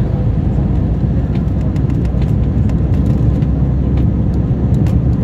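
Steady cabin noise inside an Airbus A321 descending on approach: a low rumble of the engines and airflow over the airframe, with a few faint ticks.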